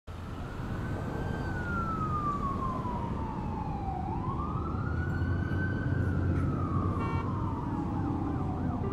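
A siren wailing slowly: its pitch falls over the first four seconds, rises again to a peak around five to six seconds, then falls once more, over a steady low rumble.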